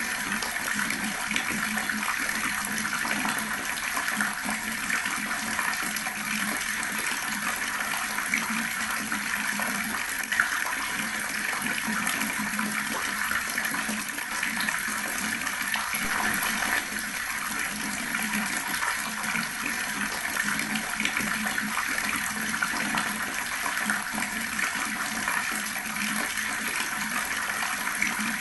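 Water running steadily from a tap and splashing, an even gurgling rush with small irregular splashes.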